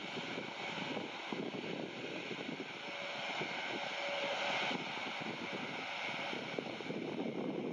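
Airbus A400M's four TP400 turboprop engines running steadily at taxi power as the aircraft rolls slowly along the taxiway, a steady hazy drone with a faint held tone.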